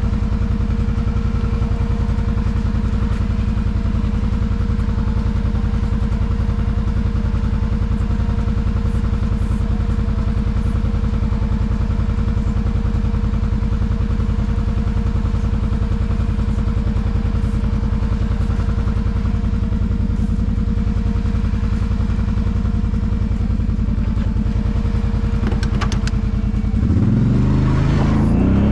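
Kawasaki Brute Force 750 ATV's V-twin engine running steadily at an even pitch, then revving up near the end.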